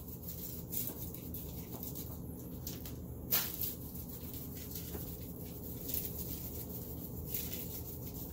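Coarse black pepper shaken from a jar onto raw steak: irregular short rattles and scatterings of grains, one sharper one about three seconds in, over a steady low hum.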